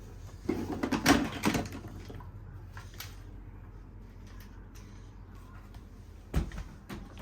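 A quick cluster of clicks and rattles about half a second in, a lone click a little later, then a single sharp knock near the end: something being handled.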